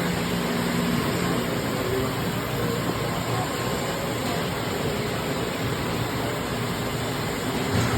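Blanchard #22D-42 vertical spindle rotary surface grinder running: a steady mechanical hum and hiss with a faint low drone.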